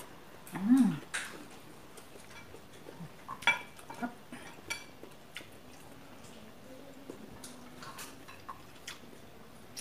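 Cutlery tapping and scraping on dinner plates in scattered, irregular clicks. A brief voiced hum rises and falls about a second in.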